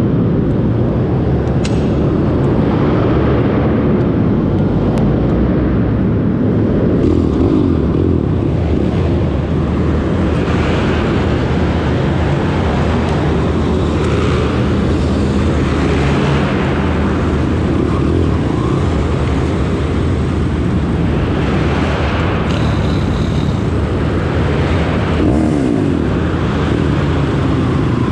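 Pit bike's single-cylinder engine running loud and close, its revs rising and falling again and again as it is ridden.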